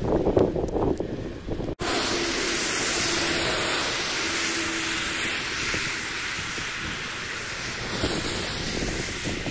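Thunderstorm wind and heavy rain heard from inside a car: a loud, steady hiss, gusty and buffeting for the first couple of seconds, broken by a sudden brief dropout, then an even rushing hiss.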